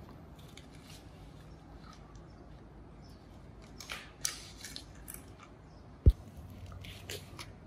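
Plastic toy cars and toy trains being handled and set down on a foam play mat: scattered light clicks and rustles, with one sharp thump about six seconds in.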